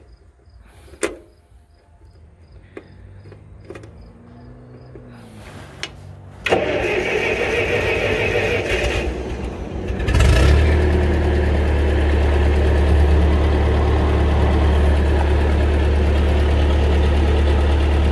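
After a few faint clicks, the 1956 Ferguson TO35 tractor's engine starts about six seconds in. It comes up strongly about four seconds later and then runs at a steady idle.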